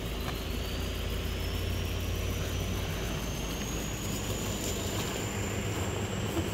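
Can-Am Outlander ATV engine idling with a steady low rumble. A thin high whine rises slowly in pitch throughout.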